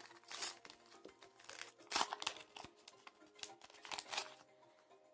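A Pokémon card booster pack's wrapper being torn open and crinkled by hand, in several irregular rustling bursts, the loudest about two seconds in, over soft background music.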